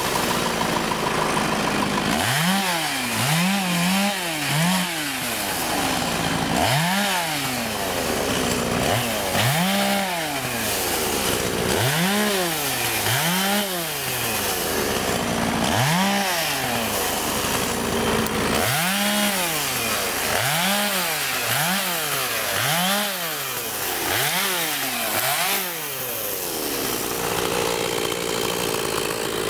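Chainsaw engine revving up and down over and over, each rev rising and falling in pitch over about a second, often two or three in quick succession, over a steady running hum.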